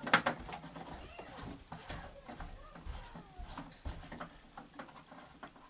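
Plastic clicks and knocks as the cap of a reverse osmosis membrane housing is handled and fitted back on, with the sharpest knock just after the start.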